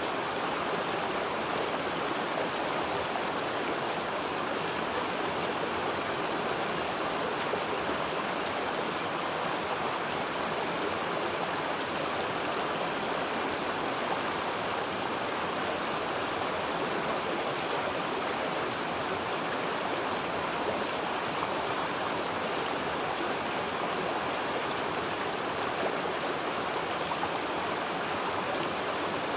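Steady rushing of flowing water, an even unbroken wash with no change over the whole stretch.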